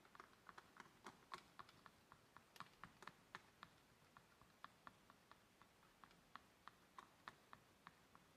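Faint, quick light taps, about four or five a second and unevenly spaced.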